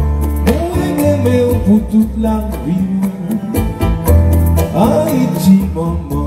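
Dance music with a singing voice over a heavy bass line.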